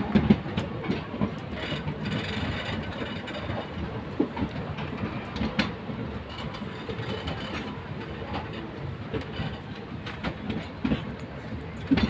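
Indian Railways passenger trains moving alongside each other on adjacent tracks: a steady rumble of coaches with an irregular clatter of wheels over the rail joints and a few sharper clanks.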